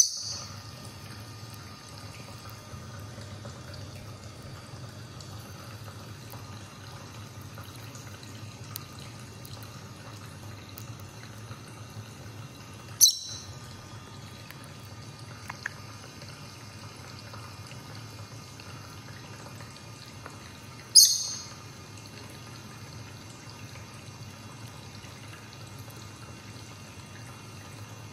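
Rosy-faced lovebird giving three short, sharp, high-pitched chirps, one at the start, one about halfway and one about two-thirds through, while it pecks at a millet spray. Faint ticking between the calls, over a steady low hum.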